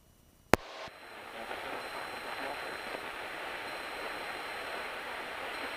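A single sharp click about half a second in, then a steady rushing hiss of cockpit noise in a Cessna 172 in flight.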